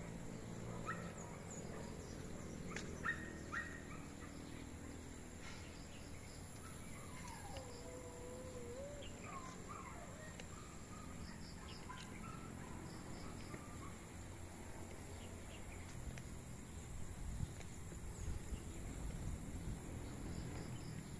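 Outdoor rural ambience with scattered bird calls: short chirps in the first few seconds and a longer wavering call about seven to nine seconds in, over a steady background hiss.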